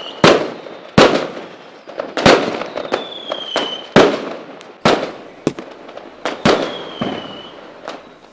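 Aerial firework shells bursting, about nine sharp bangs at irregular intervals, each trailing off in a rumbling echo, with a faint falling whistle heard twice.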